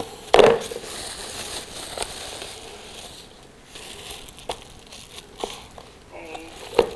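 Plastic containers being handled on a plastic tray: a series of sharp knocks as bowls and lids are set down and moved, the loudest just after the start, with crinkling of a crumpled wrapper in between.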